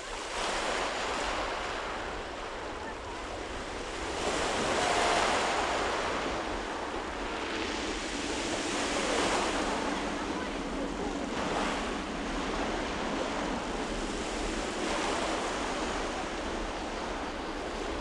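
Sea surf breaking and washing over a pebble beach in repeated swells, with wind buffeting the microphone. A faint steady hum from the passing electric-hauled passenger train sits under the surf in the middle.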